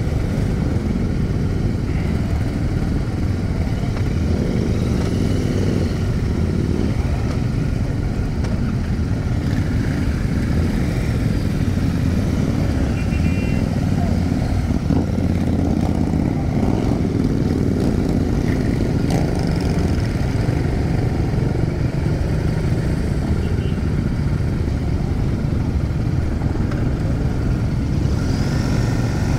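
A packed crowd of Royal Enfield motorcycles idling and rolling slowly together, a dense, steady engine rumble with no single bike standing out.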